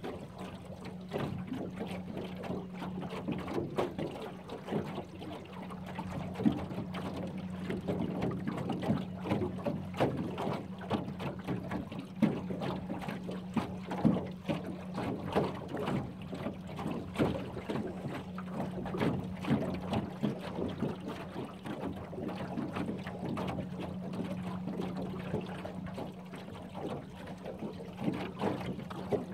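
Small aluminum fishing boat under way at low speed, a motor giving a steady low hum. Water laps and slaps irregularly against the aluminum hull.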